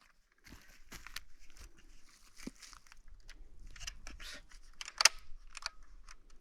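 Faint handling noises: rustling and scattered light clicks as a Stihl MS211 C chainsaw is handled and readied before starting, with one sharper click about five seconds in. The engine is not running.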